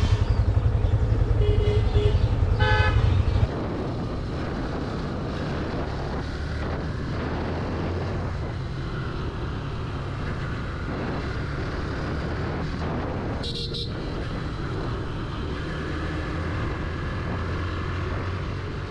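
Motorcycle engines running, with two short horn toots in the first three seconds. About three and a half seconds in, the loud engine sound drops to a quieter, steady running noise.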